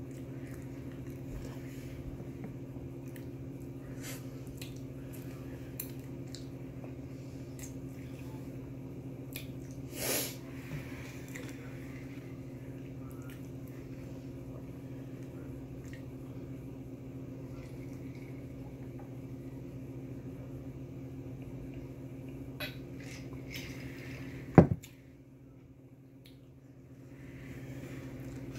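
A steady low hum runs under scattered small clicks and handling sounds of eating from a foam takeout container and drinking from a glass mug. There is a short louder noise about ten seconds in, and a sharp knock, the loudest sound, about 24 seconds in, after which the hum drops out for a few seconds and comes back.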